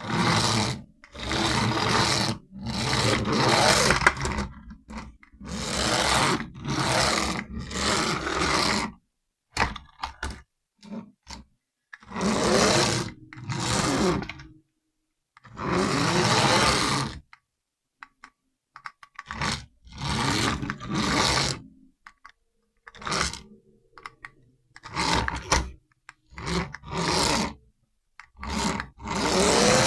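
Remote-control toy army tank sounding in repeated bursts of one to two seconds, each cut off by a short silence, some with a whine that glides in pitch.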